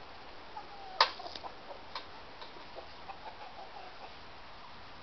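A sharp click about a second in, followed by a few lighter clicks, with domestic hens clucking softly.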